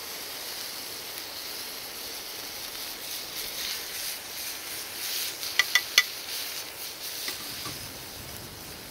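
Bacon sizzling in a cast-iron frying pan over an open fire, a steady high hiss. Metal tongs clink against the pan three times in quick succession a little past halfway.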